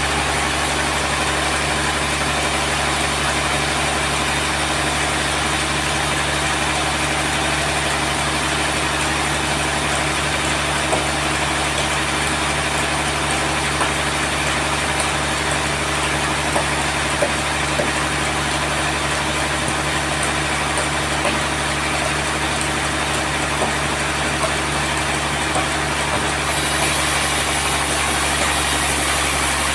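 Sawmill machinery running steadily: an even engine-like drone with a continuous hiss and a few faint ticks.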